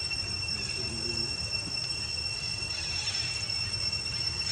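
A steady high-pitched drone over a low rumble, with a few faint high squeaks about three seconds in.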